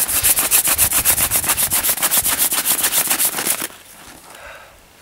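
Wooden hand-drill spindle spun between the palms, grinding in the notch of a hearth board to raise a coal: a rapid dry chatter, about ten clicks a second, that breaks off about three and a half seconds in, leaving faint scraping.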